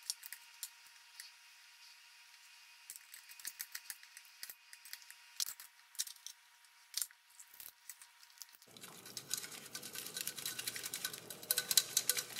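Faint scattered clicks and taps from a metal mesh strainer basket being worked in a pot of seafood boil. About nine seconds in, shrimp in garlic butter sauce start sizzling and crackling in a frying pan, growing louder.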